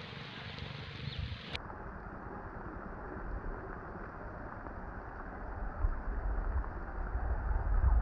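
Wind blowing across the microphone: a steady hiss with a low rumble that swells toward the end. About one and a half seconds in the sound turns abruptly duller.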